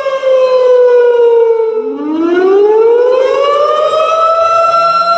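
Civil-defence warning siren wailing, sounding a tsunami alert. Its pitch slides down, then about two seconds in a new wail climbs and holds at a steady high pitch.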